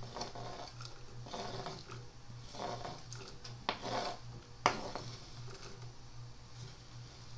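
A knife blade scraping chopped dried hibiscus flowers off a plastic cutting board into a saucepan, in about four short scrapes, then one sharp tap of the knife at about four and a half seconds.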